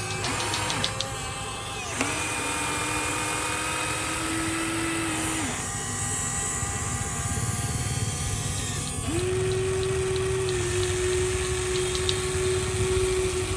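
Small electric gear motors of a Huina RC excavator running, with a steady whine. One motor starts about two seconds in and stops about three seconds later, and another starts again past the middle and runs almost to the end.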